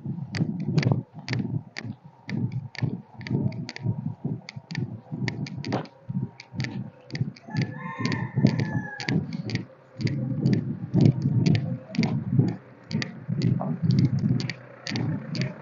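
Walking footsteps, about two to three a second, each a dull thud with a sharp click. A rooster crows once about eight seconds in.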